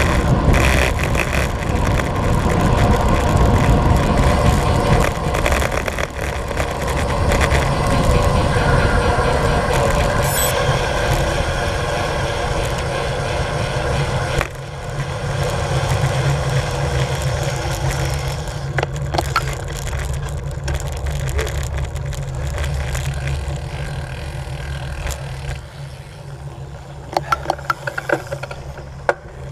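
Wind rushing over the microphone of a camera on a road bike riding at speed, with tyre noise from the road; the rushing eases about halfway through as the bike slows and coasts. A few sharp clicks near the end.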